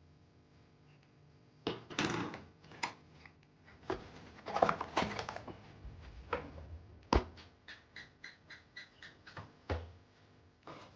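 Handling noise from unboxing a keyboard: packaging rustles and sharp knocks at irregular intervals. Near the end comes a quick, even run of about a dozen small clicks.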